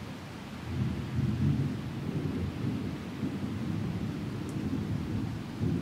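Thunder rumbling in a storm: a deep roll that swells about a second in, rolls on unevenly, and surges again near the end.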